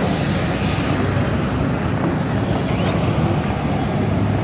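Steady rumble and hiss of a fighter jet's engine running on the ramp at low power, with no clear rise or fall.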